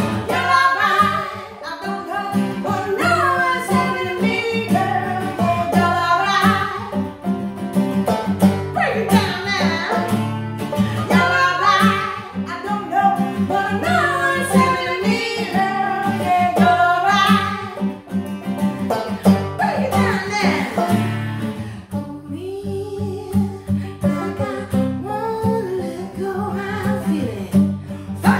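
Two women singing together to an acoustic guitar and a banjo, both strummed.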